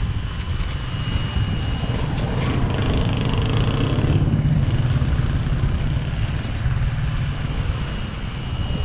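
Motor vehicle engine running steadily, heard from on board while travelling, with a steady low rumble and a thin high whine that fades in and out.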